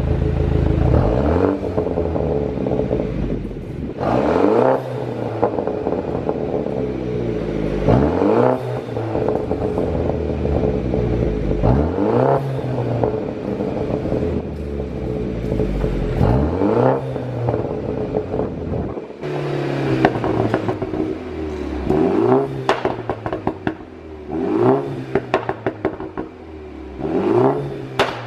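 BMW 530i's 2.0-litre turbocharged four-cylinder engine revved again and again, the pitch climbing and falling about every four seconds. Sharp pops and crackles come from the exhaust as the revs drop, the sign of a pop-and-crackle tune. In the last third the blips come quicker and the crackling is denser.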